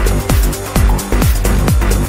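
Electronic dance music with a steady driving beat: a deep kick drum a little over two times a second and bright hi-hat ticks over it.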